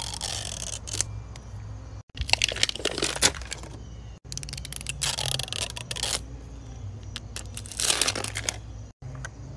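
Plastic wrapping on a Mini Brands capsule ball crinkling and tearing as it is slit open and peeled off, in four short bursts with quieter gaps between.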